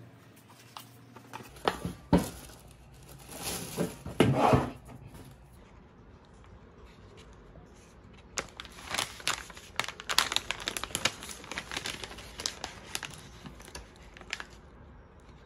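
Foil-lined plastic snack pouch crinkling as it is handled and torn open along its notch: a dense run of crackles over the last several seconds. A few louder rustles and knocks come earlier, about 2 and 4 seconds in.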